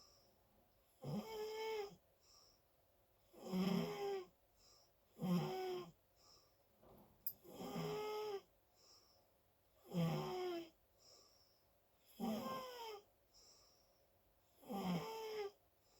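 Loud snoring: seven pitched snores evenly spaced about two seconds apart, each under a second long, with soft breathing sounds between them.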